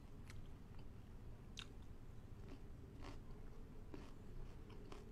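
A person chewing a mouthful of food quietly with the mouth closed. A few soft, sharp wet clicks and crunches are spread through the chewing.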